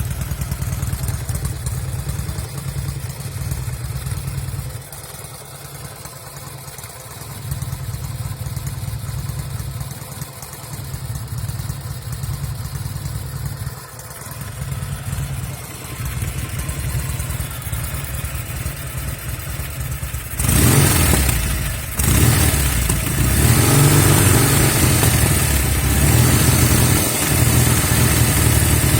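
1974 Norton Commando 850's air-cooled parallel-twin engine running at idle through un-muted silencers, with occasional misfires from the left cylinder. About two-thirds of the way through it gets suddenly much louder and stays loud.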